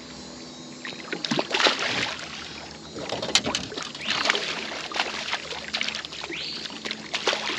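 A hooked fish thrashing and splashing at the surface beside a boat's hull as it is pulled in by the line, in several irregular bursts of splashing that begin about a second in.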